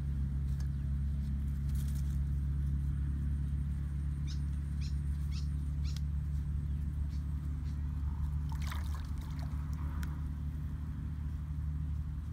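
A small engine running steadily with a constant low hum. A few faint ticks come a few seconds in, and a brief scratchy rustle comes later.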